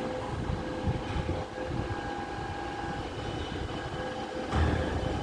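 Garbage truck running: a low mechanical rumble with a steady high whine, and a louder thump about four and a half seconds in.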